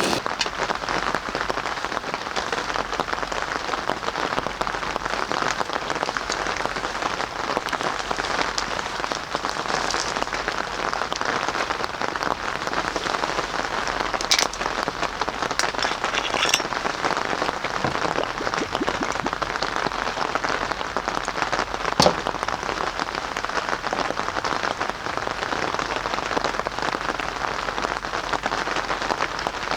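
Steady rain falling, a dense even spatter of drops. A few louder single clicks stand out, the sharpest about two-thirds of the way through.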